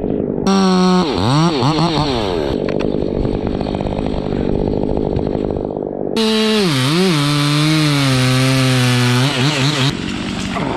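Chainsaw idling, then revved up twice to cut: a short burst about half a second in and a longer cut from about six seconds to nearly ten seconds. Its pitch sags and wobbles as the chain is loaded in the wood, and it drops back to idle in between and at the end.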